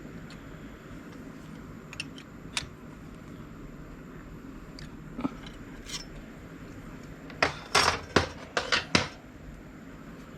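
Wrench working the hold-down bolts of a milling vise on the mill table: a few light metal clicks, then a quick run of louder clinks and clanks near the end as the bolts are tightened.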